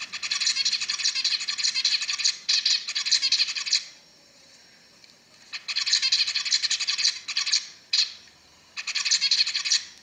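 Male zebra finch singing: a long phrase of quick repeated notes for nearly four seconds, a pause of about a second and a half, then another phrase followed by two short ones near the end.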